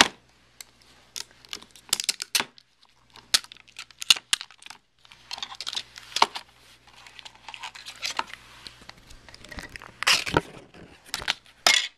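Clear plastic packaging of an iPod touch box being handled and pulled open: irregular crinkling and crackling with sharp tearing snaps, and a short pause about five seconds in.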